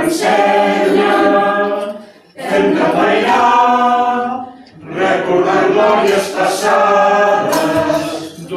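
Small mixed choir of men and women singing a cappella, in three sustained phrases with short breaths between them, about two and a half and five seconds in.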